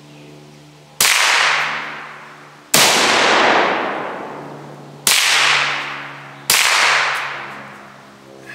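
Four rifle shots, one to two and a half seconds apart, each a sharp crack with a long echoing tail.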